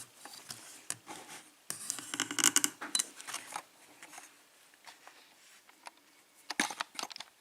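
Small metal clicks, scrapes and knocks as a brass-bodied Abus padlock is handled and clamped in a bench vise, with a busier run of scraping a couple of seconds in and a few sharp clicks near the end.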